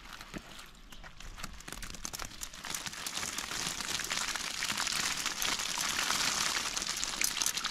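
A mass of live yabbies (freshwater crayfish) tumbling out of an upended net, their shells and legs clicking and crackling against each other and the mesh, growing louder over the first three seconds.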